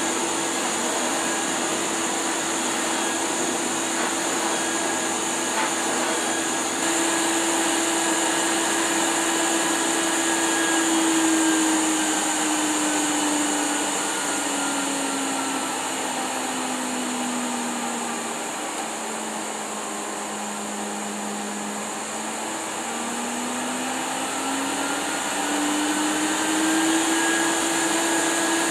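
A 1988 Hoover Sensotronic System 20 canister vacuum cleaner running with a steady motor whine. Around the middle its motor note slides down over a few seconds and holds lower, then climbs back to full speed, as the electronic suction control is turned down and back up.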